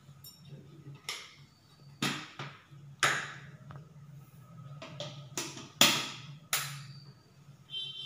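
A series of sharp knocks and clinks, about nine at uneven intervals, as hard objects are handled and set down, over a steady low hum.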